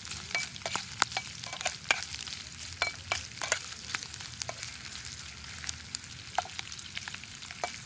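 Cubed pork frying in a pan, sizzling steadily with many sharp crackling pops, while a metal spatula stirs and scrapes it. The pops come thickest in the first few seconds and thin out after about four seconds.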